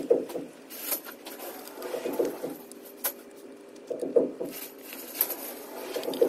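Small screws and washers clicking and tapping as they are set into a ceiling fan blade's mounting holes, over a low hoot that comes again every second or two.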